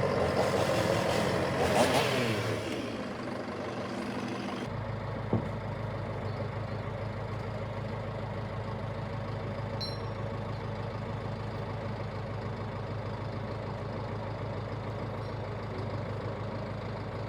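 An engine running steadily at idle, with a low, even drone. The first few seconds are louder and busier, and the sound changes abruptly about five seconds in.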